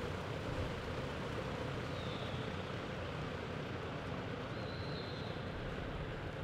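Steady, even rushing background noise of a large indoor arena, with no distinct hoofbeats from the galloping horse on the soft dirt. A faint high whistle-like tone sounds briefly twice.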